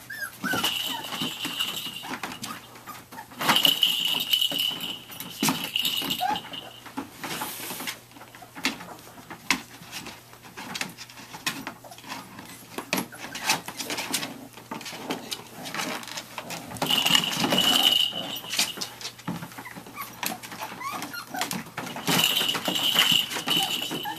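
Cavachon and Shichon puppies playing and wrestling: paws scratching and scuffling on a plastic pool and dog bed, with a few faint whimpers. Several louder stretches of rustling come and go.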